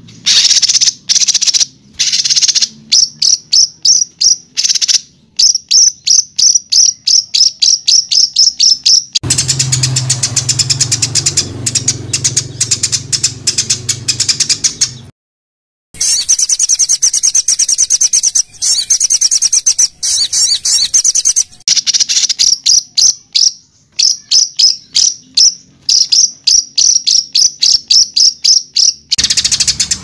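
Recorded songbird song of the loud, rapid 'tembakan' kind used to tutor caged songbirds: sharp high notes repeated in fast trains, a harsh buzzing, rattling stretch in the middle, a sudden one-second break, then a dense fast trill and more runs of repeated notes.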